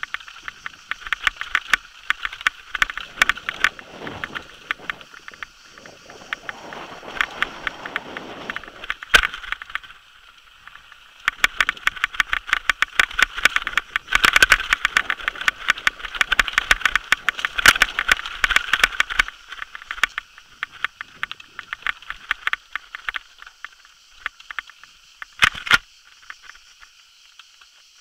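Downhill mountain bike clattering over a rocky trail: a dense, uneven rattle of clicks from the chain and frame as the tyres hit stones. A lower rushing noise joins it for a few seconds early on. There are two hard knocks, one about nine seconds in and one near the end.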